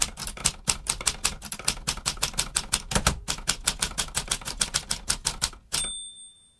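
Typewriter sound effect: rapid, even keystroke clacks, about eight a second, ending about 6 seconds in with a ringing bell ding like a typewriter's carriage-return bell.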